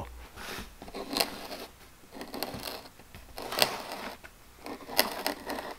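A pointed metal scribe scratching a circle into a clear Lexan polycarbonate sheet in a series of short scraping strokes, scoring out a gear blank.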